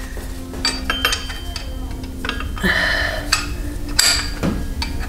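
Scattered light metallic clinks and taps of a hand wrench being fitted onto the vacuum pump's mounting bolts on a 7.3 L Powerstroke diesel, with a short rasping noise about halfway through and a faint steady low hum underneath.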